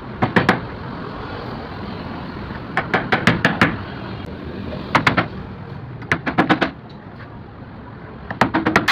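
Five quick clusters of sharp knocks, three to five strikes each, over a steady background hiss: about half a second in, around three seconds, around five, around six and a half, and near the end. No saw motor is running.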